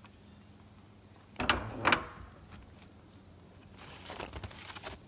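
Two sharp knocks about half a second apart as the tubing fitting on the tank is handled, then about a second of hissing from a propane torch flame used to warm frozen sap tubing.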